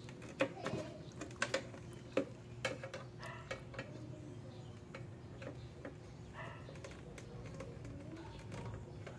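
Screwdriver working the screws of a window-type air conditioner's sheet-metal housing: irregular sharp clicks and ticks of metal on metal, most of them in the first four seconds, over a steady low hum.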